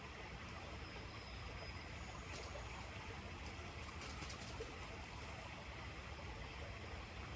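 Steady outdoor background noise with a low rumble underneath, a faint thin high tone or two and a few light clicks, about two and four seconds in.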